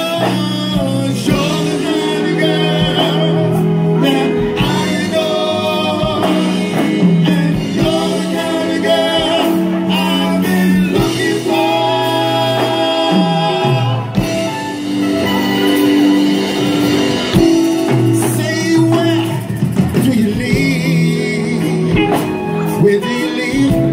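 Live band performance: male singers with lead and backing vocals over keyboards and drums, amplified through an outdoor PA system.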